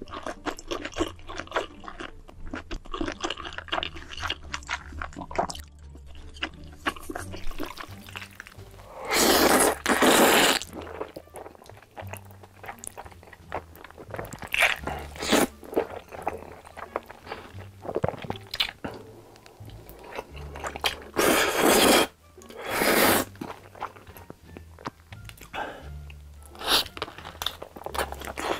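Close-miked eating sounds: crunchy chewing and several loud slurps of noodles in dark sauce, each lasting a second or so. Background music plays underneath.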